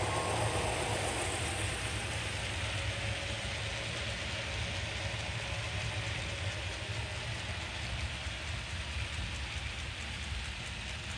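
HO scale model freight cars rolling past on track, a steady rattling hiss of small metal wheels on the rails with a low hum underneath. Faint quick ticks come through near the end.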